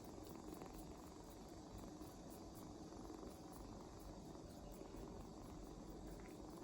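Young kitten purring faintly and steadily as it sucks on a finger to fall asleep.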